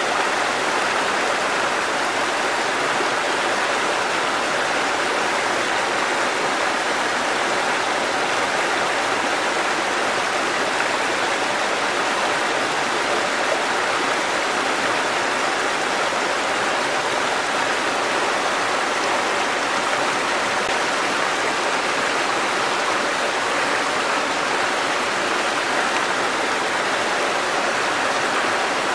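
Small waterfall: a thin curtain of water falling over rocks and splashing into a pool, a steady, even rush of water.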